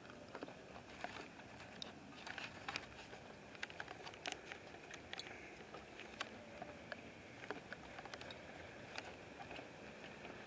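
Faint outdoor night ambience: a steady hiss with a faint high hum, dotted with scattered, irregular sharp clicks and ticks.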